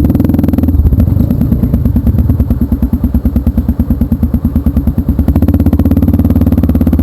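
Trail motorcycle engine running loud and close. Its beat slows in the middle and picks up again about five seconds in.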